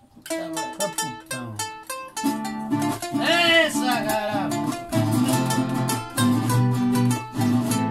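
Acoustic guitars playing the opening of a Bolivian song: picked notes at first, then fuller strumming with a bass line from about two seconds in. A man shouts "¡Esa!" about halfway through.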